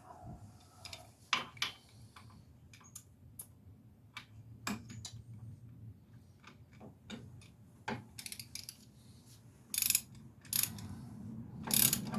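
Hand ratchet clicking in short, irregular runs as the wheel hub bearing's mounting bolts are run down and snugged, with the clicks coming thicker near the end.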